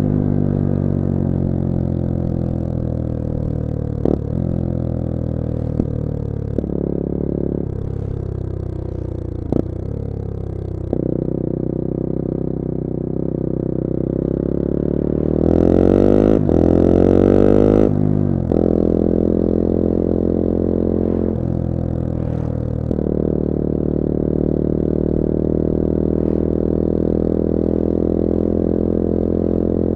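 Bullit Hero 250's CF Moto 250cc four-stroke engine under way on the road. The revs fall in several long slides with brief breaks at gear changes, climb hard about halfway through, then settle into a steady cruising note.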